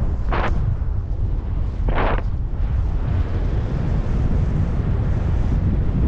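Wind buffeting the microphone of a paraglider pilot in flight: a steady low rumble, with two short bursts of hiss about half a second and two seconds in. No engine is heard.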